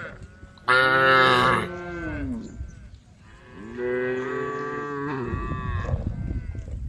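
Cattle mooing: two long moos, the first and louder starting about a second in and falling in pitch at its end, the second starting about four seconds in. A low rumble runs underneath the second moo.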